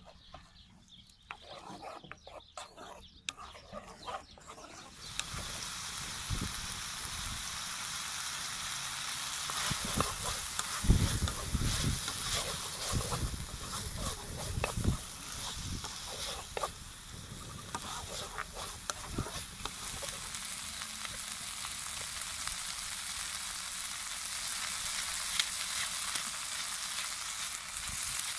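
Liver pieces with onion, tomato and green chilli sizzling in a black pan over a wood fire, stirred with a wooden spoon that scrapes the pan. The steady sizzle comes in about five seconds in, after a quieter start with scattered clicks, and a few dull low thumps fall in the middle.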